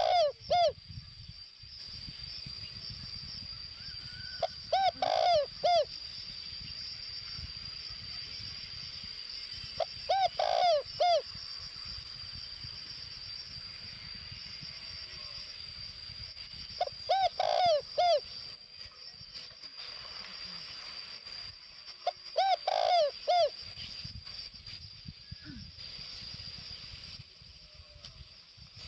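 Spotted dove cooing: short phrases of several coo notes, repeated about every five to six seconds. A steady high-pitched whine runs beneath.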